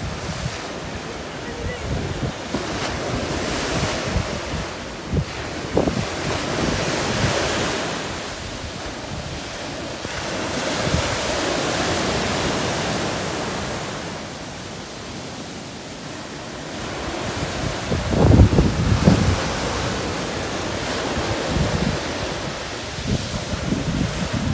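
Sea waves breaking and washing up the beach, swelling and fading in repeated surges. Wind gusts buffet the microphone, and the loudest moment is a low rumble about eighteen seconds in.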